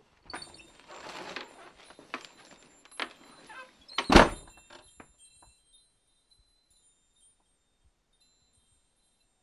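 A metal tubular wind chime jangling and ringing beside a wooden door, with a loud single thud about four seconds in, as the door is knocked or shut. Afterwards the chime's high tones ring on faintly and die away.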